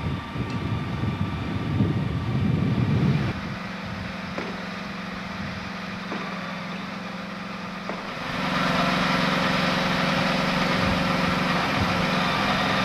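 Diesel engine of a Deutsche Reichsbahn class 132 ("Ludmilla") locomotive, a Kolomna 16-cylinder, running at a standstill with a steady low hum. About eight seconds in it speeds up and gets louder. The first few seconds are a rougher low rumble.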